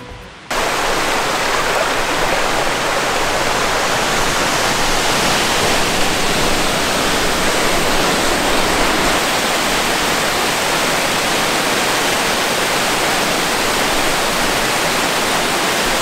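Amicalola Falls, a steep cascading waterfall, heard close by as a loud, steady rush of falling water, cutting in abruptly about half a second in.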